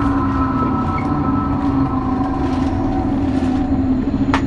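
Running sound of a Tokyo Metro 03 series chopper-controlled subway car (motor car MoHa 03-212): steady rumble of wheels on rail with a constant drive hum and several control and motor tones that slowly fall in pitch. A sharp click about four seconds in.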